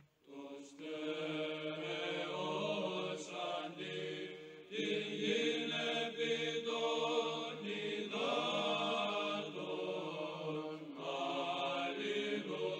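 Slow sung church chant: voices holding long, drawn-out notes in phrases a few seconds long, fading out near the end.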